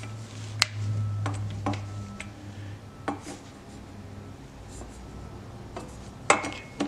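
Wheeler FAT Wrench torque screwdriver being turned on the small screws of an AR-15 rail's end plate: scattered light clicks and rubbing, with a low hum during the first half. The screws are being tightened toward the wrench's 20 inch-pound setting.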